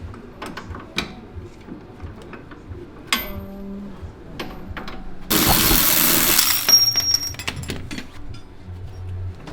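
Metal hand tools clicking and clinking on suspension bolts, with a loud rushing hiss lasting about a second and a half midway through.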